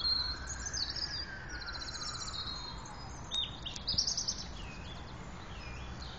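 Several songbirds singing, with rapid trills and chirps, over a steady low background rumble. A faint whine rises and then falls in pitch during the first few seconds.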